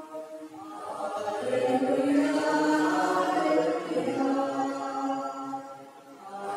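A male cantor chanting a psalm refrain in Konkani into a microphone, with long held sung notes. The phrase fades away near the end.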